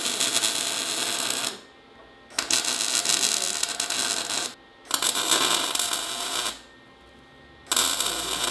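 MIG welder laying short welds in four bursts of crackling, each one to two seconds long with brief pauses between, as studs are welded onto the car's steel body.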